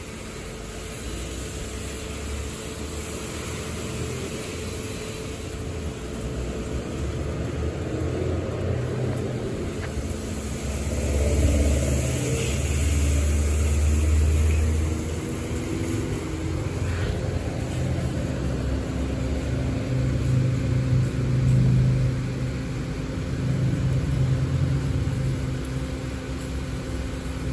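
Washworld Revv touchless car wash machine running its cycle: the gantry's pump and drive motors hum, with water spray hissing on the car and a low rumble that swells twice.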